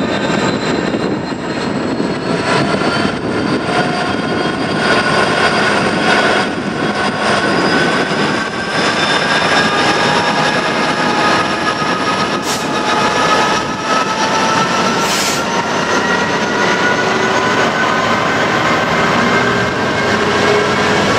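Class 66 diesel-electric freight locomotive, with its two-stroke V12 engine, pulling away under power, with a whine that climbs steadily in pitch as it gathers speed. Two short hisses come about twelve and fifteen seconds in.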